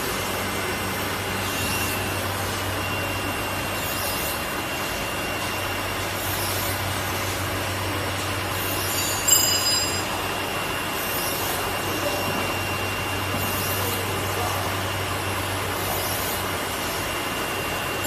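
Automatic ceramic-roller cleaning robot for a glass tempering furnace running, its cleaning head rubbing along the ceramic rollers with a steady scrubbing noise over a low motor hum and a thin, steady high whine. One brief sharp squeak about nine seconds in.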